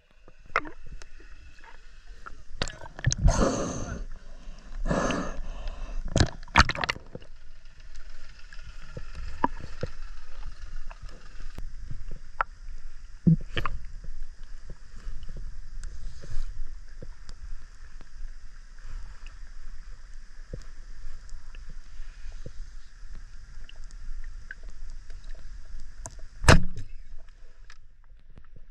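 Underwater sound from a camera held below the surface of a lagoon: a steady low, muffled water rumble dotted with small clicks, with a few loud rushes of moving water in the first seven seconds and another near the end.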